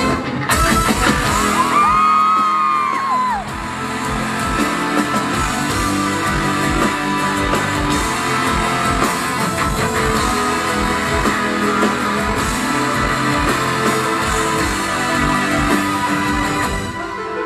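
Rock band playing an instrumental passage: a steady drumbeat under guitar, with no singing, and a high sliding note rising and falling about two seconds in.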